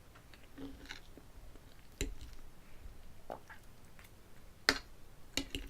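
A person eating close to the microphone: quiet chewing with scattered sharp clicks, the loudest about two seconds in and just before five seconds, and a few more near the end.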